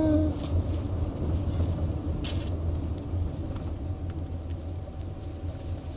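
Steady low rumble of a vehicle driving, engine and road noise heard from inside the cabin, with a brief hiss about two seconds in.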